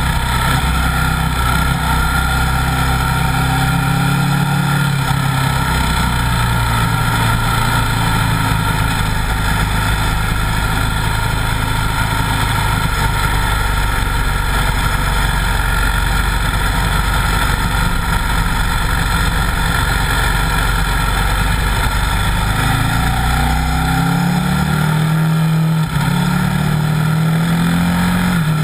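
Buell 1125R's V-twin engine running at a steady pitch under constant wind rush. Near the end the revs climb and drop back several times as the bike accelerates through gear changes.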